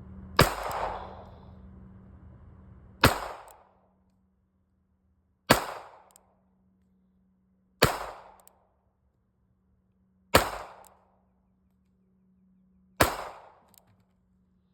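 Six single shots from a Ruger LCP .380 ACP pocket pistol firing 95-grain Remington rounds, spaced about two and a half seconds apart, each followed by a short echo.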